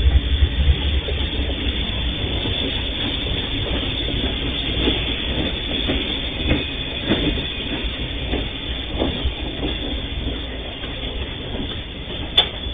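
MRS Logística freight train's hopper wagons rolling past: a steady low rumble, loudest at the start, with the wheels knocking over the rail joints every second or so. A single sharp click near the end.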